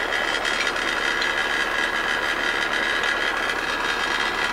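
MTZ-80 tractor's four-cylinder diesel engine idling steadily.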